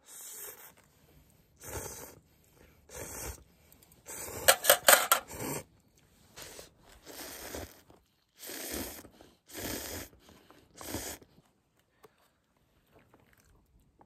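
A spoon scraping and scooping inside a crinkly self-heating meal pouch, with eating sounds close to the microphone, in a string of short separate bursts and a few sharp clicks about four seconds in.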